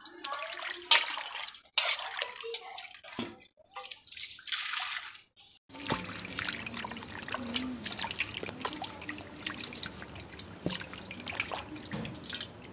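Water splashing, sloshing and dripping in a metal basin as pieces of cleaned fish are washed and rubbed by hand. The splashes come in short irregular bursts for the first few seconds, then go on as many small splashes and drips over a steady background hiss.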